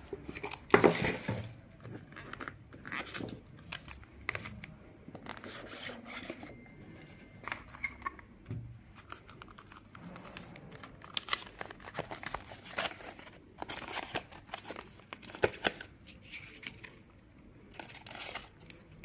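Cardboard smartwatch box and paper insert being handled and opened by hand: repeated rustling and scraping of paper and card with short sharp knocks, the loudest about a second in.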